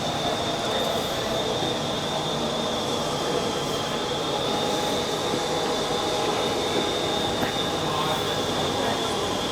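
GMB Class 71 electric airport express train at the station platform: a steady rumble with one high, even whine held throughout.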